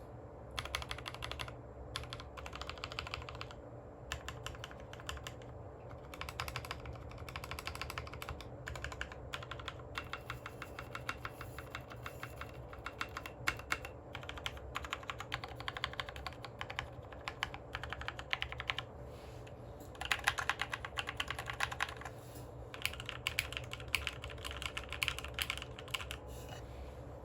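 Typing on a Matrix Abel X Buster custom mechanical keyboard with lubed Novelkeys Cream linear switches, an aluminium plate and PBT keycaps: a steady run of keystrokes with brief pauses, fastest about twenty seconds in.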